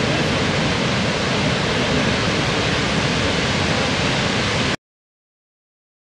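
A large, powerful waterfall rushing with a loud, steady roar of falling water. It cuts off suddenly about three quarters of the way through, leaving silence.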